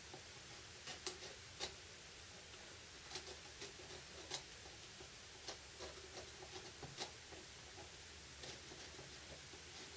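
Faint, scattered small clicks and light taps from handling small drill-motor parts, about ten spread unevenly over a low background.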